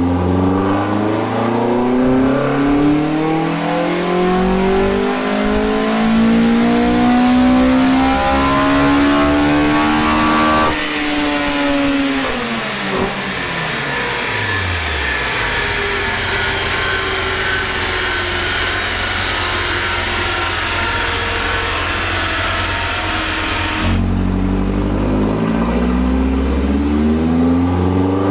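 Toyota 4A-GE twin-cam four-cylinder with individual throttle bodies and short velocity stacks making a full-throttle dyno pull: the revs climb steadily for about ten seconds, then the throttle shuts and the revs fall away over a few seconds, leaving a steady rushing noise. Near the end it cuts suddenly to the engine running again, revs rising at the start of another pull.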